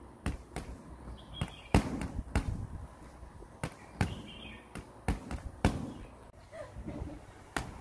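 Boxing gloves striking hand-held training pads: a quick, uneven run of sharp smacks, about fourteen, some in close pairs.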